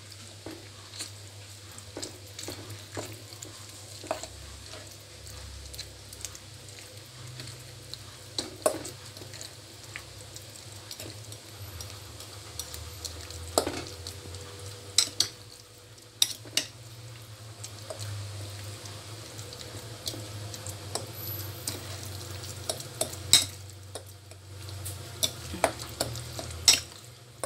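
Metal spoon stirring a wet mix of beaten egg, corned beef and corn in a bowl, with irregular clinks of the spoon against the bowl, the sharpest ones near the end. A low steady hum runs underneath.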